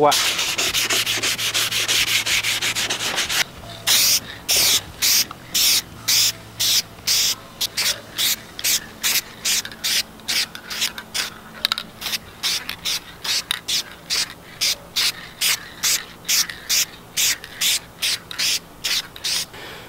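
An aerosol spray can hisses in one continuous spray for about three and a half seconds. Then hand wet-sanding starts on the primed plastic car bumper: sandpaper rubbing back and forth in quick, even strokes, about two to three a second.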